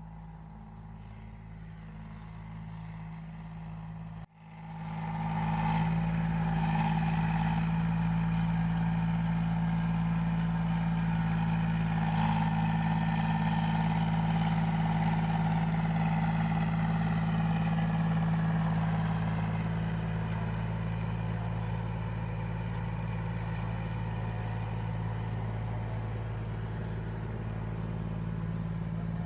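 Rice combine harvester's engine running steadily at constant speed. It cuts out for a moment about four seconds in and comes back louder.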